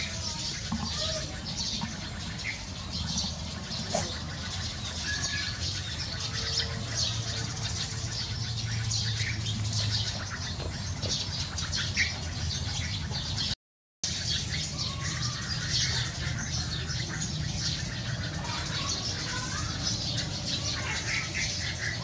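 Eurasian tree sparrows chirping together in a dense, continuous chatter of short high notes, typical of a flock gathering to roost. A steady low rumble lies underneath, and the sound cuts out for a moment about two-thirds of the way through.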